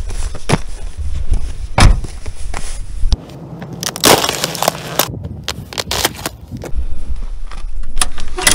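Footsteps crunching on frozen, frost-covered ground, then, about four seconds in, a boot breaking the thin ice of a frozen puddle with a loud crackling crunch, followed by a few sharp cracks.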